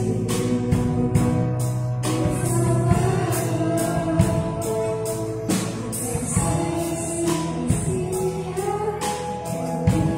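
Children's choir singing a Christmas song with a live band of piano, drum kit, bass, acoustic guitar and ukulele, over a steady beat.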